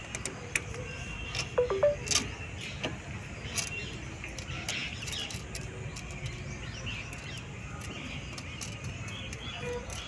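Scattered metallic clicks and taps of hand tools and parts while a motorcycle clutch cable's lower end is being fitted, loudest in a short cluster about two seconds in, over a steady low background rumble.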